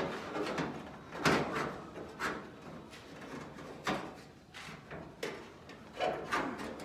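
Sheet-metal trunk extension panel being pushed into place, scraping and knocking against the car body's sheet metal several times, the loudest about a second in.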